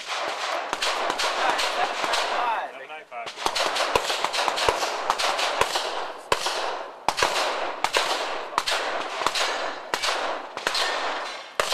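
Handgun shots fired in quick succession, sharp cracks roughly one or two a second, each trailed by ringing echo.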